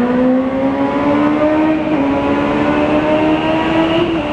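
Honda CBR600 sportbike's inline-four engine pulling under acceleration in a road tunnel, its pitch climbing steadily, with a small dip about two seconds in and another near the end.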